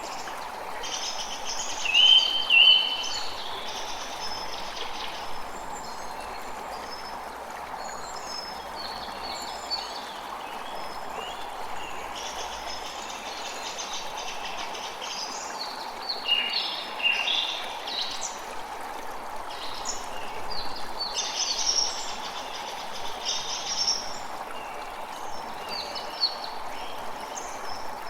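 Forest ambience: several birds chirping and singing over a steady rushing background noise. The loudest calls come about two seconds in and again around sixteen seconds.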